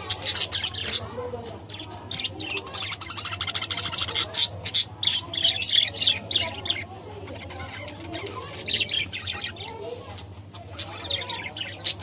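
Budgerigars chattering: a fast run of short, sharp chirps and warbles, thinning for a moment about two-thirds of the way in before picking up again, over a steady low hum.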